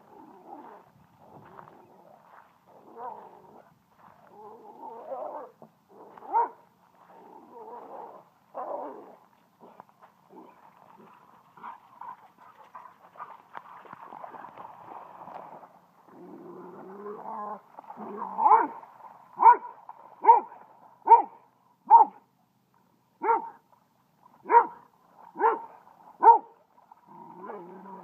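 German Shorthaired Pointer play-barking: soft, scattered vocal sounds through the first half, then a run of about nine sharp barks roughly one a second near the end, a bark that invites another dog to chase.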